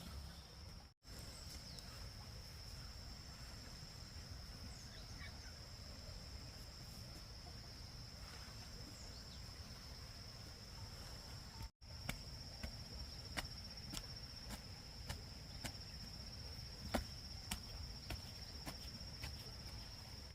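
Insects chirring with one steady high-pitched tone. In the second half, scattered sharp taps or knocks sound over it.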